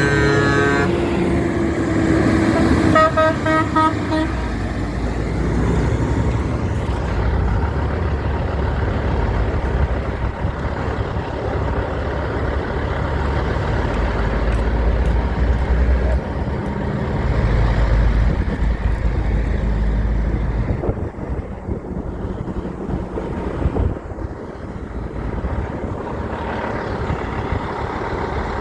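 Big truck's horn blowing at the start with a rising tone, then a rapid run of short toots about three seconds in, followed by the heavy low rumble of the truck's engine, which eases off after about twenty seconds.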